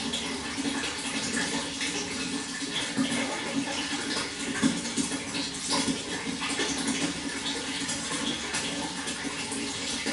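Water flowing steadily, with small irregular splashes throughout.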